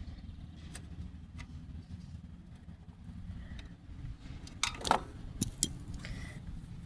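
A wrench being handled and fitted to a mini bike's oil drain plug: a few sharp metallic clicks and knocks, loudest about five seconds in, over a steady low rumble.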